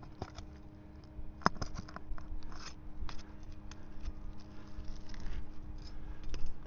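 Scraping and clicking of a tool worked under asphalt roof shingles to pry out the roofing nails, with one sharp click about a second and a half in.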